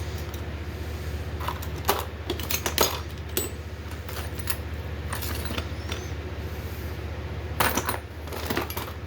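Light metallic clinks and knocks, as of small metal parts or tools being handled and set down, scattered irregularly over a steady low hum. The sharpest knocks come about two and three seconds in and again near the end.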